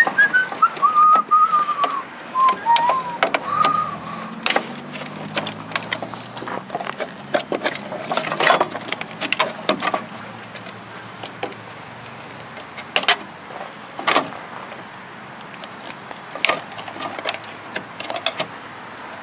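Wire cutters snipping through the insulated wiring harness inside a plastic UPS case, heard as sharp irregular clicks and snaps along with plastic knocking as the case is handled. Over the first few seconds a wavering whistle falls slowly in pitch.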